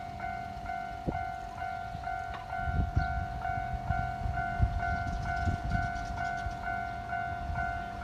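Railway level-crossing warning bell ringing in a steady ding-ding rhythm, about two strikes a second, signalling that a train is approaching. A low rumble with a few dull thumps comes in a few seconds in and fades near the end.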